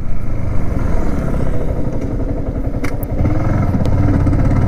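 Yamaha R15's single-cylinder engine running steadily while riding at road speed, growing a little louder in the second half. There is one faint click about three seconds in.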